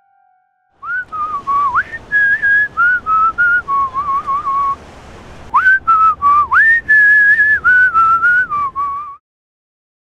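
A person whistling a tune: a clear single line of notes stepping up and down, with a short break about halfway. It cuts off suddenly near the end.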